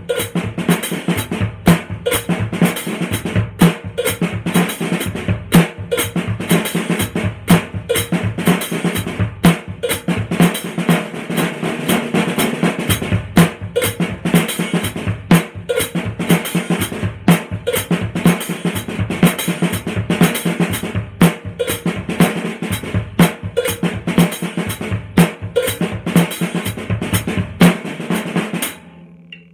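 Drum kit played continuously, with snare, bass drum and cymbal strikes; the playing stops abruptly near the end.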